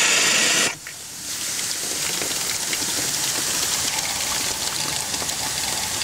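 Rebuilt Chicago steam injector on a live-steam model boiler being started: a loud hiss of steam blowing out drops away sharply under a second in, leaving a steadier, quieter gushing hiss as the injector works and water goes into the boiler.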